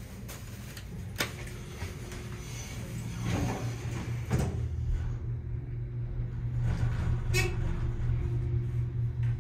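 Dover traction elevator closing its doors and then riding up, with a steady low hum from the car and machine growing louder about three seconds in. A few sharp clicks are heard along the way.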